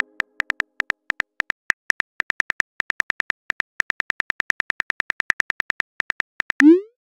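Phone on-screen keyboard click sounds, about seven quick taps a second, as a text message is typed out. Near the end a short rising swoosh marks the message being sent.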